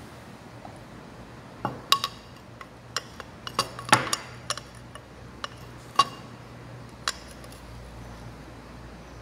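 Glass test tube clinking as it is handled in its rack: a scattered run of sharp clinks with short ringing, the loudest about two, four and six seconds in.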